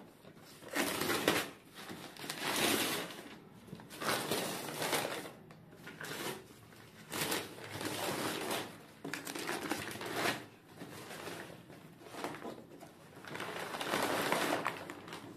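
Gift wrapping paper being torn and crumpled off a cardboard box by hand, in a string of irregular rustling bursts.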